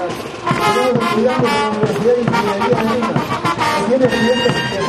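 Brass band playing dance music, with a wavering brass melody over a steady drumbeat.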